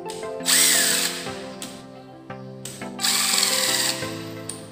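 Cordless drill-driver with a socket spinning out main bearing cap bolts on an engine block, in two short runs about half a second in and again about three seconds in, each speeding up and winding down. Background music plays under it.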